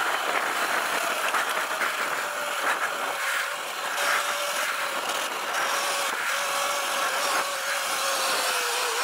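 Sur-Ron Light Bee electric dirt bike with a KO Moto Factory Spec motor and controller, its motor whining steadily under way and dipping slightly in pitch near the end, over a rush of wind and tyre noise on the dirt.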